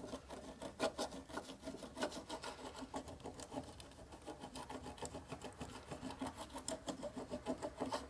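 Hand applicator scraped backwards and forwards over a hard wax filling on a white uPVC window profile, levelling off the overfilled repair: a quick run of short rubbing, rasping strokes.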